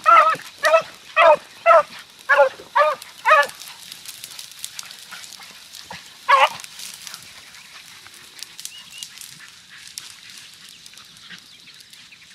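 Hunting beagle baying on a rabbit's scent trail: a quick, evenly spaced run of about seven short barking cries, then a single cry a few seconds later, after which the dog falls silent.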